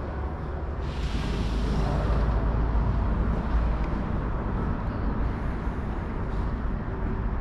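Steady low rumble of city traffic, with a louder hiss rising about a second in and fading over the next second or so.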